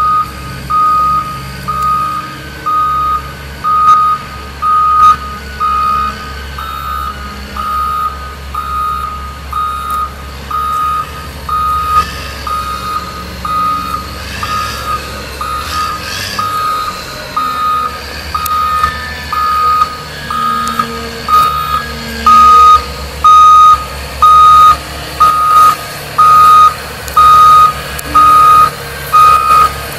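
Motor grader's reversing alarm beeping a single high tone about once a second over its diesel engine running; the beeps get much louder in the last third as the grader backs closer.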